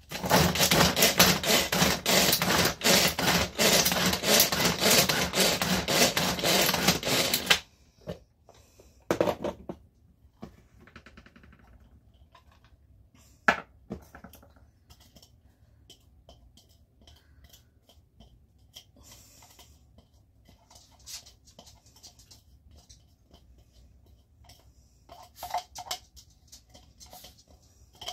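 Small food chopper mincing celery: a loud, rapid rattling for about seven and a half seconds that stops abruptly. After it come a sharp click and quiet scrapes and clinks as the minced celery is knocked and scraped out of the chopper into a pan.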